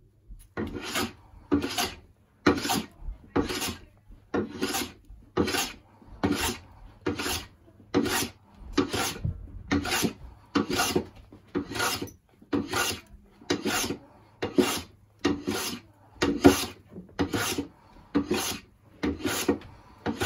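Metal hand plane taking shavings off a wooden banjo neck blank: about twenty even strokes, roughly one a second, each a short rasping swish of the blade cutting wood, starting just under a second in.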